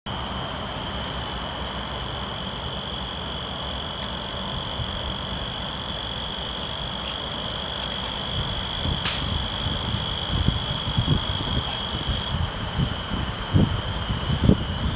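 A steady, high-pitched drone of several pitches at once, typical of a chorus of insects such as cicadas, over a low rumble. The highest pitches drop away about twelve seconds in, and a few low thumps come near the end.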